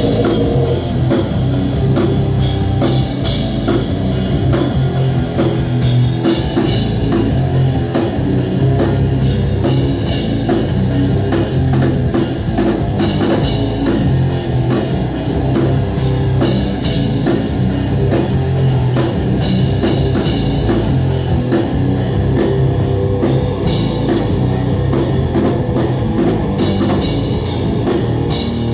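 Heavy metal band playing live: electric guitars and a drum kit at a steady, loud level.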